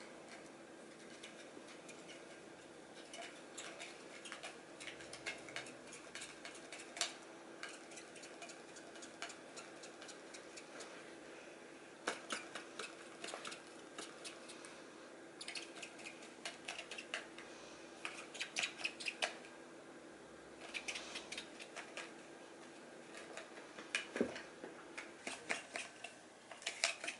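A cat chewing a plastic drinking straw: quick runs of small sharp clicks as the straw flicks against its teeth, coming and going with short pauses and busiest in the second half, over a faint steady hum.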